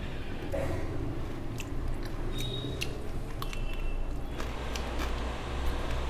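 Close-up chewing and biting of curried prawn, eaten by hand, with scattered wet mouth clicks and smacks.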